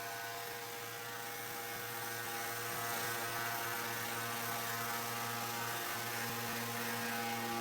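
Electric pressure washer used for AC cleaning, running steadily with a motor hum over a hiss of spraying water.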